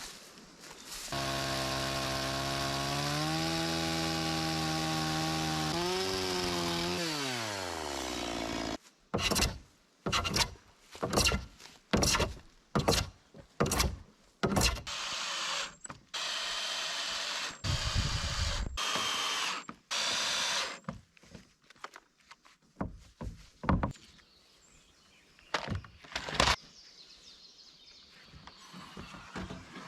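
A small engine runs steadily for several seconds, then winds down and stops. It is followed by a quick series of short, noisy strokes on wood, about two a second, some of them longer, trailing off into scattered light knocks.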